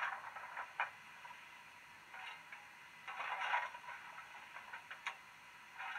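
Hornby 9F model steam locomotive's DCC sound decoder playing standing-loco sounds through a small speaker in the tender: irregular short hisses and sharp clanks, the loudest a burst of hiss a little after three seconds in.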